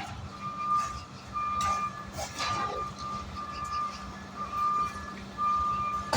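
A vehicle's reversing alarm beeping: a steady high beep about half a second long, repeating roughly once a second, over a low steady hum.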